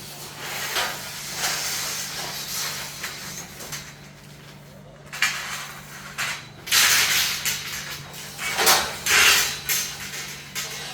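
Irregular bursts of hissing noise, each about a second long, the loudest near the end, over a steady low hum.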